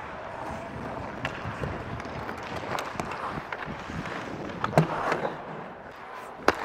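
Live ice hockey play: skates scraping and carving on the ice and sticks clacking on the puck, with a sharp knock about five seconds in and another near the end.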